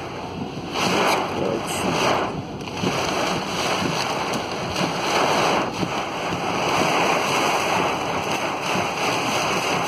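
Steady noisy rush of heavy rain and flowing floodwater, with a few louder surges in the first few seconds.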